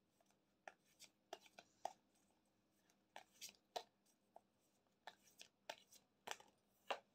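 A tarot deck being shuffled by hand: faint, irregular short snaps of cards, roughly one or two a second.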